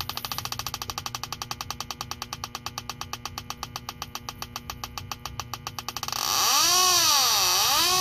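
Electronic refrigerant leak detector beeping rapidly as its probe sniffs at the aluminum evaporator coil's orifice fitting. About six seconds in it jumps to a louder rising-and-falling wail, twice, as it picks up leaking R410A refrigerant.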